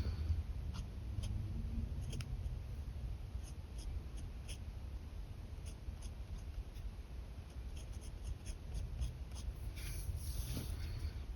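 Pen nib scratching and ticking on paper in short sketching strokes, with a longer scratchy run of strokes near the end, over a low steady rumble.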